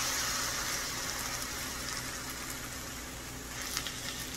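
Hot water sizzling and bubbling in a sauté pan of cooked-down peppers and vegetables as it deglazes the pan, the sizzle slowly easing off. A few light scrapes of a silicone spatula near the end.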